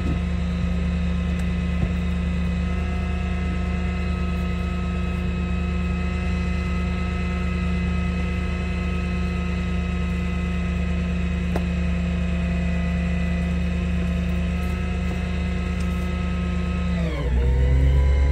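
Dodge Ram 5500 wrecker's engine running at a steady, raised speed. Near the end its pitch drops sharply and the low rumble gets louder.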